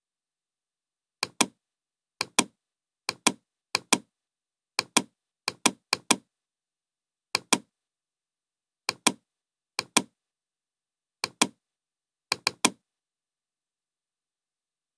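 Computer mouse clicks, about a dozen at irregular intervals, each heard as a quick pair of sharp clicks.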